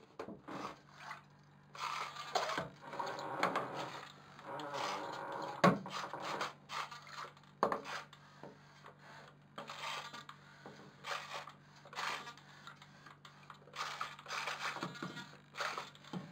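Water sloshing and lapping in a sink around a small floating model boat hull, with a few sharp knocks, over a steady low hum.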